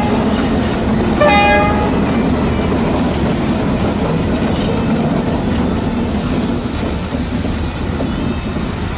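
Toy train sounding a short horn toot about a second in, then running steadily along its model track with a continuous rumble and rattle.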